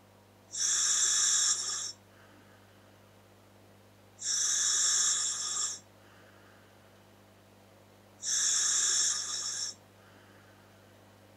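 Scuba regulator feeding a Dräger full-face mask, air hissing through it with each breath: three breaths about four seconds apart, each lasting about a second and a half.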